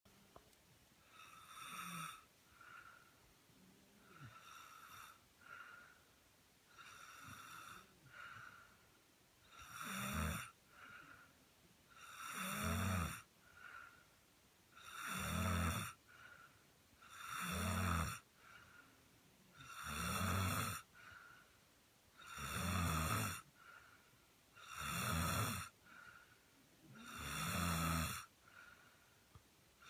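A woman snoring in her sleep, one snore about every two and a half seconds. The snores are soft at first and grow much louder from about ten seconds in, with a short, fainter breath sound between them.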